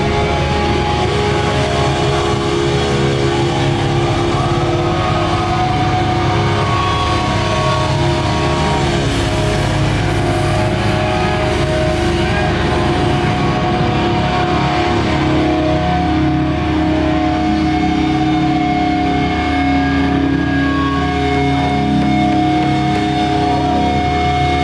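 Metalcore band playing live at full volume: a dense, steady wall of distorted electric guitars with drums and sustained held notes, without a break.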